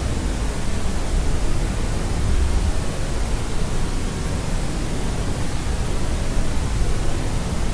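Steady white noise for sleep: an even, unbroken hiss, heavier in the low end.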